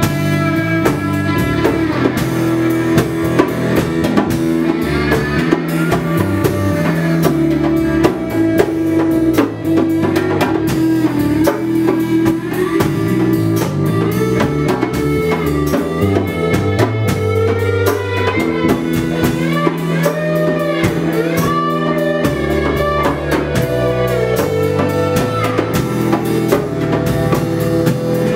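Instrumental band music: an electric guitar plays a lead with bent, gliding notes over hand drums and cymbals keeping a steady beat.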